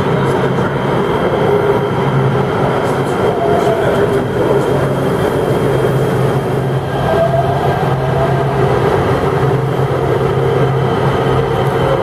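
Los Angeles Metro light rail train moving along a subway station platform, a steady low running hum with brief motor whines twice.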